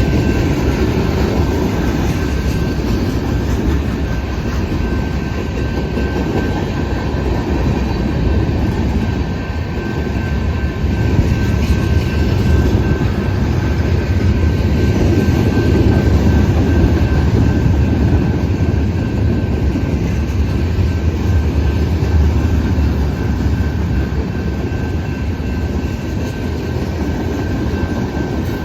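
Freight cars of a Canadian Pacific manifest train rolling past, a loud steady rumble of wheels on rail that swells slightly midway, with a thin steady high tone running under it.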